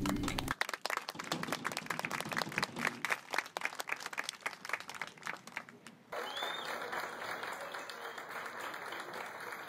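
Crowd applauding, a dense patter of many hand claps. About six seconds in it gives way abruptly to a softer, steadier crowd noise.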